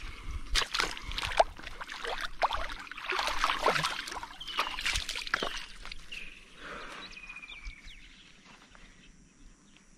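An African sharptooth catfish (barbel) being released into shallow river water at the bank, splashing and churning the water as it thrashes free and swims off. The splashing is loudest a few seconds in and dies away over the last few seconds.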